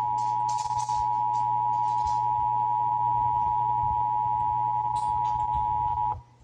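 Emergency Alert System attention signal: the steady two-tone alert (853 Hz and 960 Hz sounded together) that precedes a required monthly test message. It cuts off suddenly about six seconds in.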